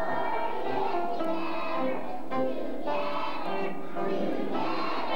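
A choir of young children singing together in unison, in held phrases broken by short pauses for breath.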